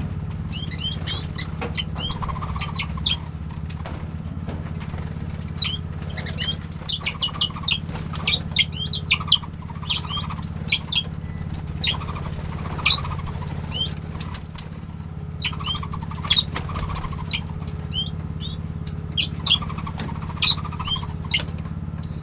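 Small birds in a mixed aviary of finches, waxbills and Bourke parrots, chirping with many short, high calls that come thick and fast. A steady low hum runs underneath.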